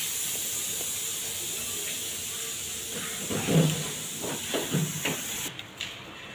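Steady hiss of rain falling, muffled suddenly about five and a half seconds in. A few dull thumps in the second half.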